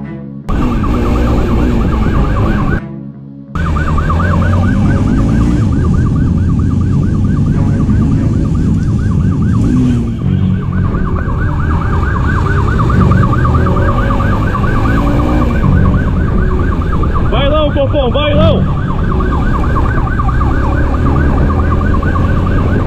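Police motorcycle siren yelping in a fast up-and-down warble over the steady engine and wind noise of the pursuing motorcycle. Its tone changes briefly about 17 to 18 seconds in.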